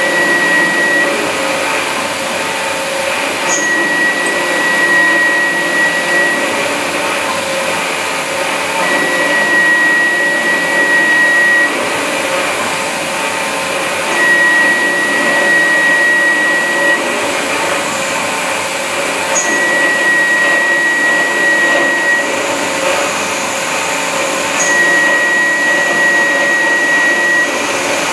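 A CNC mill thread-milling aluminium: the spindle and an air jet give a steady hiss. Over it, a high whine from the thread mill cutting comes on for two to three seconds at a time, repeating about every five seconds.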